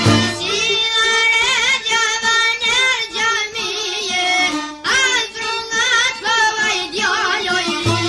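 Albanian folk song: a high voice sings an ornamented line with heavy, trilling vibrato over a held accompaniment. The low drum-and-bass beat drops out while it sings and comes back near the end.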